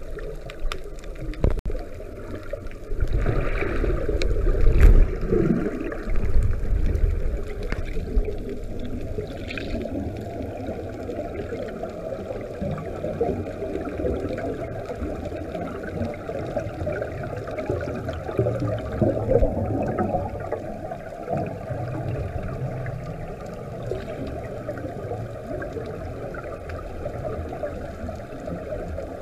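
Scuba regulator exhaust bubbles gurgling and rumbling, heard underwater, louder for a few seconds near the start.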